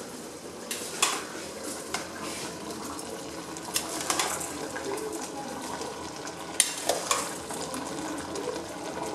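Wet washed rice being spooned onto the meat and vegetables in a metal pot for plov, with several short scrapes and taps of the spoon against the pot and bowl, over a steady sizzle from the simmering meat base underneath.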